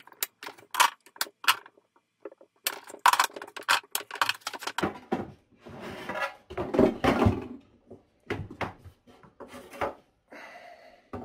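Plastic quick-release bar clamps being released with a run of sharp clicks, then clattering as they are set down together on a table. Near the end, a few more knocks as the bent vinyl plank is lifted off the wooden form.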